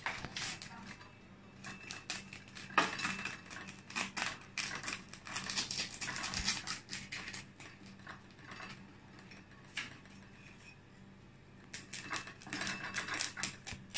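Large knife cutting into the crisp skin of a whole roast suckling pig: rapid crackling clicks in spells, with a quieter stretch in the middle.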